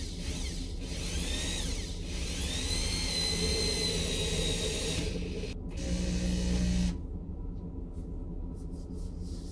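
Corded drill driving a flathead self-tapping screw through an MDF wall panel into a steel hat channel. The motor whines up to speed and runs steadily for a few seconds, then drops to a lower, louder hum for about a second and stops.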